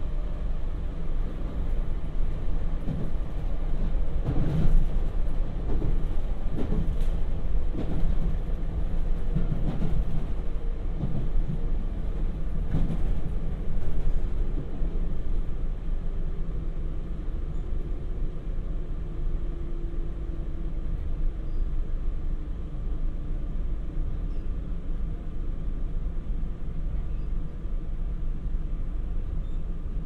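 Cabin running sound of a JR Hokkaido 721 series electric multiple unit under way: a steady low rumble of wheels on rail, with a run of clacks and knocks through the first half that settles into a smoother rumble later.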